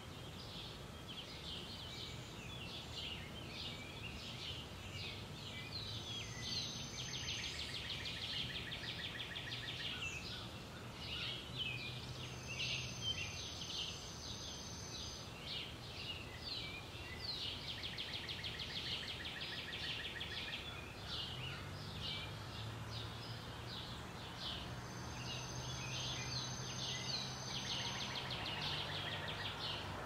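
Birds chirping and trilling over and over, with a low steady drone underneath that grows stronger in the second half.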